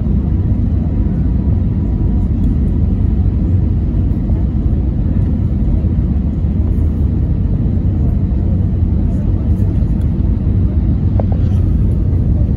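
Airbus A320 cabin noise on descent to landing: the steady low rumble of the jet engines and rushing airflow, heard from a window seat over the wing.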